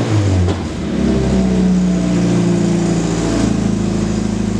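2013 Scion FR-S's 2.0-litre flat-four engine breathing through a newly fitted Invidia N1 cat-back exhaust: the revs settle back down in the first second, then it idles steadily.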